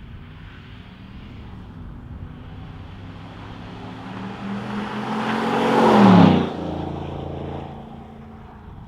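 2020 Chevrolet Silverado V8 with an AWE OFG cat-back exhaust driving past. The exhaust note builds to its loudest about six seconds in, then drops in pitch and fades as the truck goes by.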